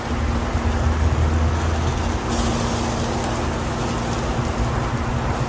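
Ribs and chicken sizzling on a gas grill as they are basted with a sauce brush, with a brief sharper hiss a little over two seconds in. Under it runs a steady low rumble with a hum.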